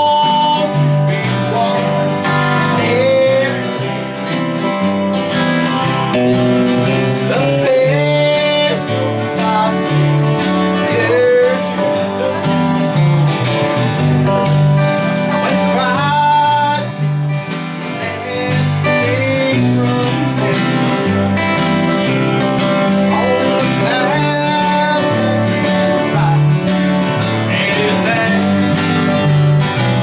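A man singing a slow country gospel song, accompanying himself on acoustic guitar with a steady alternating bass-and-strum pattern.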